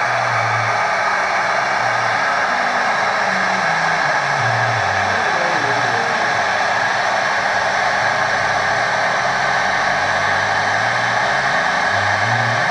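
CNC machine running: a steady rushing hiss from the spindle, with low motor hums underneath that jump and slide between pitches as the axes move.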